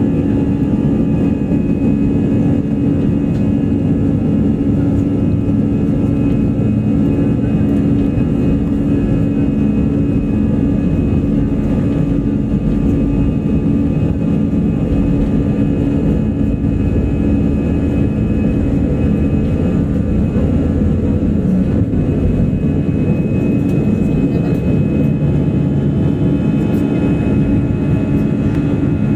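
Airbus A320 jet engines at takeoff thrust, heard from inside the passenger cabin during the takeoff roll and climb-out: loud, steady engine noise with a constant hum, unchanged through liftoff.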